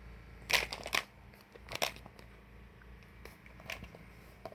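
Handling noise from small parts being moved: a quick cluster of sharp clicks and rattles about half a second in, another near two seconds, then a few faint ticks.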